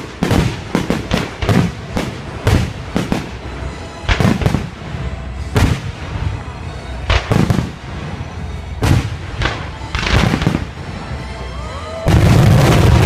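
Fireworks going off: a steady run of sharp bangs at irregular intervals, several a second at times, then about twelve seconds in a sudden loud dense crackle with whistling glides.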